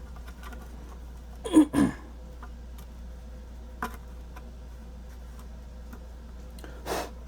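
Small plastic embossing-tool parts being handled: scattered light clicks and taps, with two loud short knocks about a second and a half in and a soft rustle near the end.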